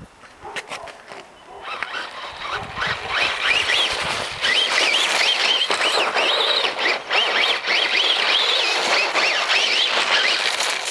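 A Tamiya Buggy Champ RC buggy's electric motor whining, its pitch rising and falling over and over with the throttle, over the hiss of its tyres churning through snow. It starts faint and grows loud about two seconds in as the buggy comes closer.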